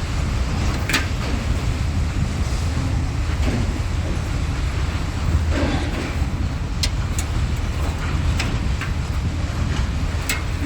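A heavy engine running at a steady low rumble, with a few sharp metallic clinks scattered through it.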